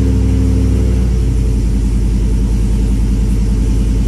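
A 2012 Chevrolet Silverado's 5.3-litre V8 idles steadily just after starting, running on E85 with its new flex fuel sensor in the tune. It is heard from inside the cab.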